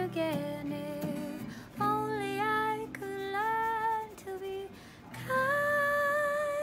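A woman singing with acoustic guitar accompaniment: several sung phrases with long held notes over strummed chords.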